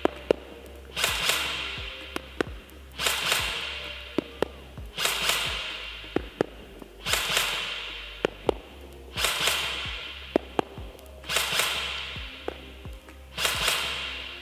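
Apex Fast Attack 702 airsoft electric gun firing single shots on semi-auto, heard as sharp clicks every second or two. Behind them, background music with a hissing cymbal-like swell about every two seconds.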